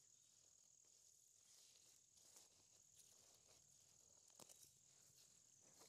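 Near silence, with a faint, steady, high-pitched insect trill from summer insects and a few faint clicks.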